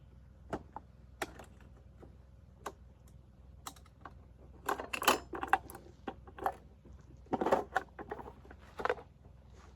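Sharp metallic clicks and rattling clatter of a PKMS machine gun's parts being handled, with single clicks at first and then denser bursts of clatter about five and seven and a half seconds in.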